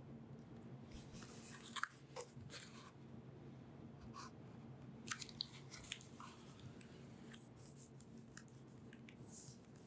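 Hands handling a hardcover book: pages turning, the book closing and fingers moving over its cover, heard as a string of short, faint, crisp rustles and taps over a low steady hum.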